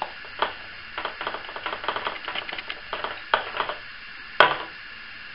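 Small clicks and ticks of a screwdriver working tiny screws in the plastic arm of a Syma X8C quadcopter, with the plastic body being handled, then one sharp knock about four and a half seconds in as the drone is turned over.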